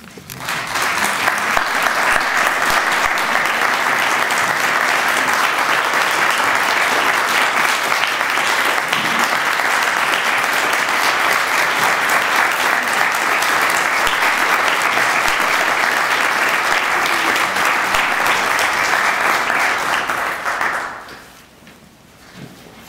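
Audience applauding in a standing ovation: dense, sustained clapping that builds within the first second, holds for about twenty seconds and dies away near the end.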